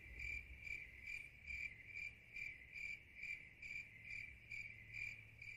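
Crickets chirping steadily, about two chirps a second: the stock sound effect laid over an awkward silence, here after an unanswered birthday wish.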